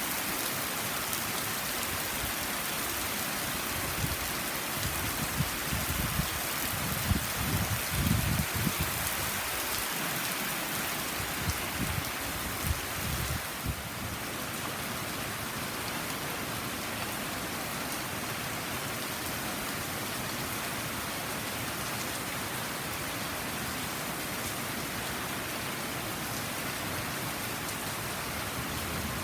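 Heavy tropical-storm rain pouring down steadily, with a low rumble and a few knocks that swell between about 4 and 13 seconds in.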